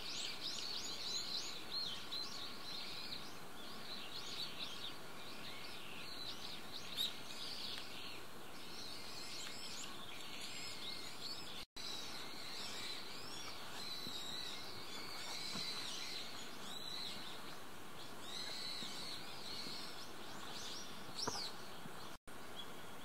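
Outdoor ambience of many small birds chirping and calling in quick, overlapping notes over a steady background hiss. The sound drops out for an instant twice, about halfway and near the end.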